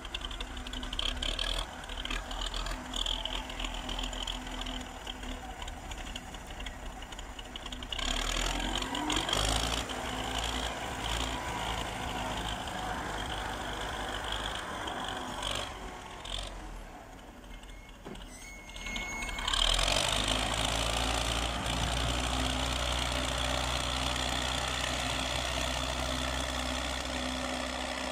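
Wheel loader's diesel engine running under load as it scoops and pushes snow. It drops away briefly about two-thirds through, then runs louder and steadier.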